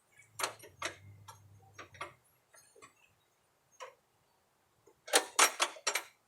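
Scattered metal clicks and clanks from a mower-deck belt and its pulleys being worked into place by hand. About five seconds in comes a quick run of five louder clicks. A faint low hum is there for the first two seconds.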